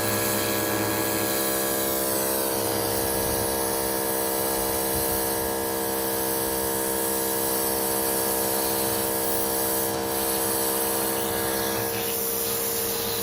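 Pressure washer running steadily: an even, pitched hum from its motor and pump under the constant hiss of the water jet spraying.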